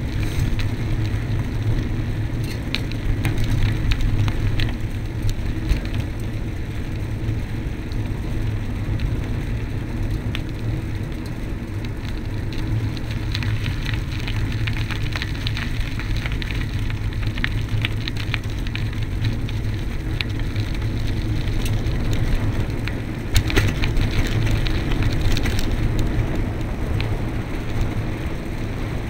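Bike-mounted camera on a bicycle riding a rough country lane: a steady low rumble of wind and road noise, with constant small rattles and crackles as the camera shakes over the uneven tarmac. There is a cluster of louder knocks a few seconds before the end.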